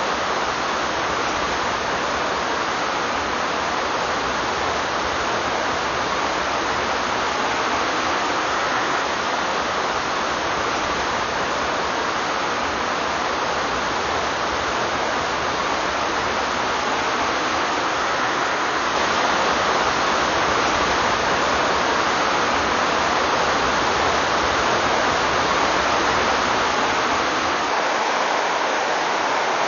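River white water rushing over rapids: a steady, even rush of noise that grows slightly louder about two-thirds of the way in.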